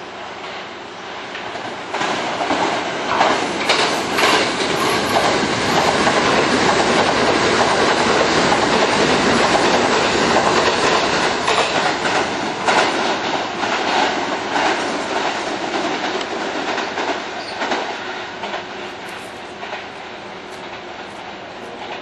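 Kintetsu electric commuter train running through the station at speed, wheels clicking over the rail joints. It grows loud about two seconds in, stays loud through the pass, and dies away after about eighteen seconds.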